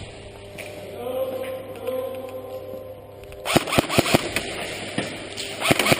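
Airsoft guns firing in close quarters: four sharp shots in quick succession about three and a half seconds in, then two or three more near the end. Before them, a faint, steady, voice-like drone.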